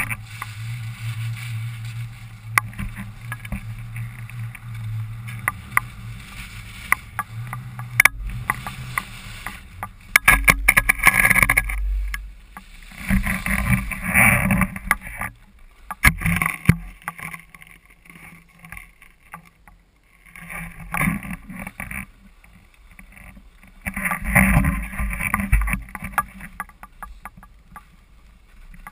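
Skis hissing and scraping over packed snow, rising in several surges during turns, with scattered clicks and rustles of clothing rubbing on the camera.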